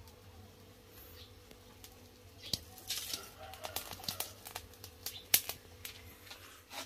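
Wood fire under a cooking pot crackling, with a run of sharp pops thickest through the middle few seconds and one pop louder than the rest.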